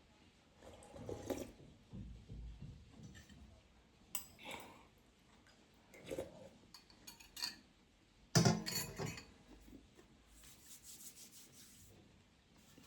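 Someone eating a meal, with irregular clinks and scrapes of dishes and cutlery and one louder knock about eight seconds in.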